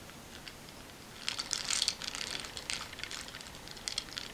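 Faint, irregular scratchy rustling and light clicks of close handling while powder foundation is brushed onto a face, starting about a second in.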